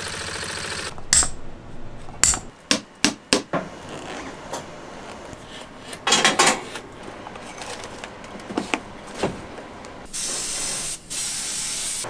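Hand shoemaking sounds in quick succession: a string of sharp knocks, then a hand rasp scraping along the rubber sole edge of a leather boot about six seconds in, and two spray bursts of about a second each near the end.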